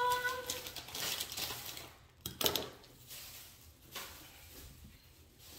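Kitchen knife stabbing and cutting into a raw pumpkin's rind: a few separate crunching stabs, the loudest about two seconds in and a smaller one near four seconds.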